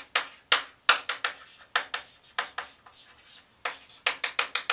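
Chalk writing on a blackboard: a quick, irregular run of sharp taps and short scrapes as words are written, with a pause of about a second late on.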